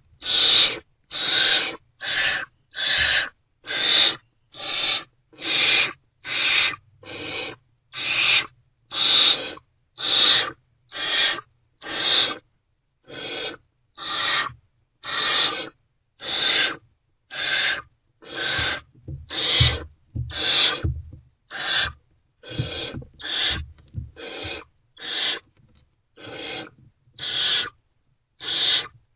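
Barn owlets giving their rasping, hissing begging calls over and over, a little more than one short harsh hiss a second, the typical food-begging of hungry nestlings.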